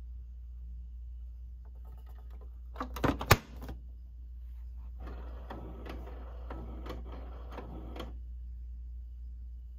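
Canon large-format printer mechanism running with a rhythmic mechanical clatter for about three seconds as it sets up a newly installed MBK ink tank. A few sharp knocks come shortly before it, the loudest about three seconds in.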